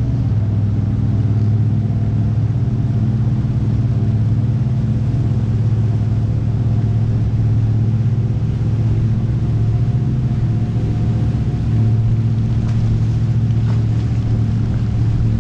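Motor tour boat under way at a steady cruising speed: its engine gives a loud, even drone with a steady low hum, along with water rushing off the hull.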